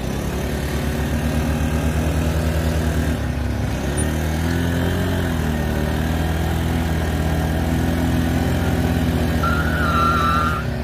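Two 110 cc Honda scooter engines, an Activa 4G and an Aviator, running hard together under load as they pull against each other, the engine note wavering slightly about four seconds in. A brief wavering high squeal near the end.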